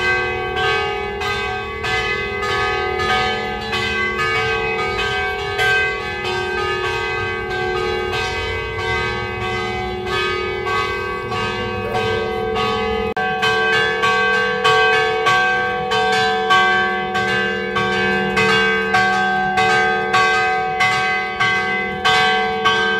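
Church bells ringing a continuous fast peal, about three strokes a second, with the tones of the struck bells ringing on under each new stroke.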